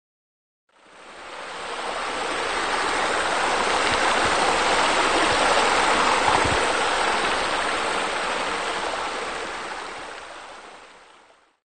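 Running water, a steady splashing rush like a small waterfall pouring into a pool. It fades in about a second in and fades out near the end.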